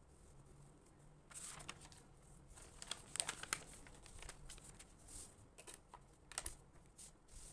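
Faint pen strokes scratching and tapping on notebook paper, followed by paper rustling as a loose sheet is handled, a series of short irregular clicks and rustles.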